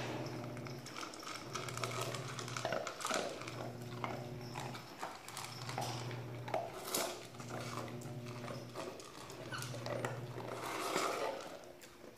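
A dog eating dry kibble from a stainless steel bowl: irregular crunching and clicks of food and bowl. Under it, a low hum pulses on and off about once a second.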